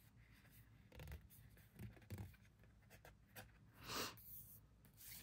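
Faint handling of oracle cards, card sliding against card: a few soft taps and rustles, then a longer swish about four seconds in.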